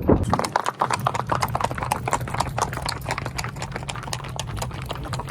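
Horses' hooves clopping on a street: a fast, irregular run of strikes from more than one horse, with a thump right at the start.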